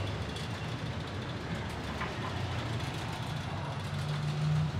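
Steady low rumble of a motor vehicle engine running, with a few faint clicks over it.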